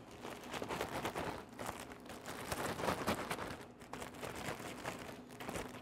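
Zip-top plastic bag being shaken by hand, with coated rice cereal squares and powdered sugar inside. The bag crinkles and the cereal rattles in a steady, irregular clatter.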